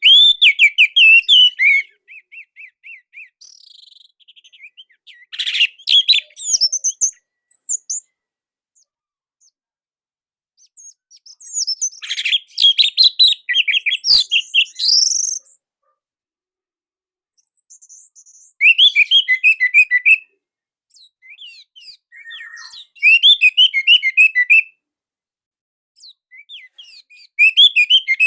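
Orange-headed thrush (anis merah) singing: about six separate phrases of rapid, densely packed high chirping and twittering notes, each lasting one to three seconds, with pauses between them. The song is loud and tightly packed.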